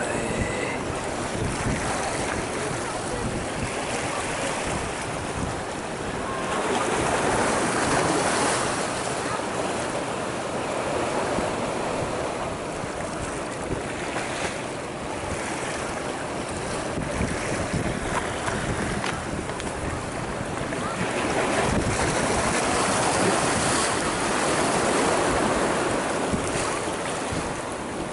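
Small sea waves washing and splashing over lava rocks, surging louder twice, with wind on the microphone.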